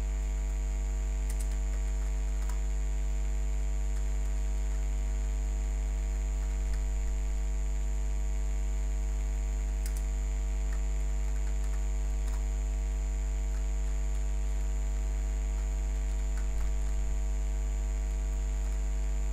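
Steady electrical mains hum with many overtones and a faint constant high whine, picked up by the recording chain. A few faint, scattered keyboard clicks.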